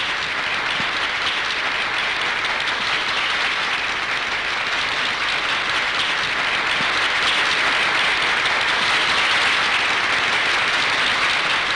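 Crowd applauding: dense, steady clapping that grows a little louder toward the end.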